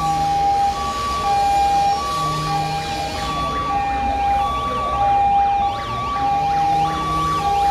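Emergency vehicle's two-tone hi-lo siren, alternating between a higher and a lower note about every 0.6 seconds. About three and a half seconds in, a second, faster warbling siren joins.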